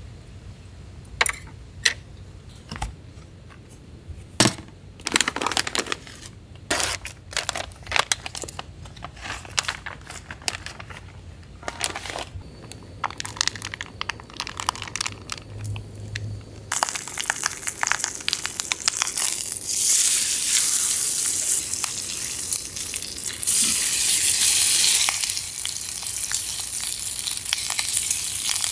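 Plastic bag crinkling, with scattered clicks and clinks, as raw meat is handled. About halfway through, the meat goes into a hot cast iron skillet and starts sizzling, a loud steady hiss that grows a little louder a few seconds later as it fries.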